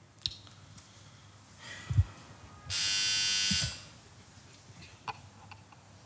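Electric doorbell buzzer sounding once for about a second, a harsh steady buzz, shortly after a single dull thump. A couple of faint clicks around it.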